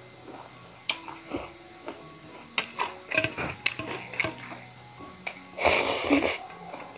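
Close-up eating sounds: scattered clicks of a spoon on a plate and chewing, with a louder burst of noisy chewing near the end, over soft background music.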